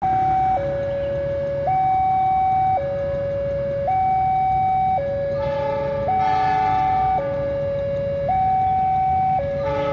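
Railway level-crossing warning alarm sounding its two-tone signal, a high note and a low note alternating about once a second, warning of an approaching train. A short chord-like tone joins it about five and a half seconds in.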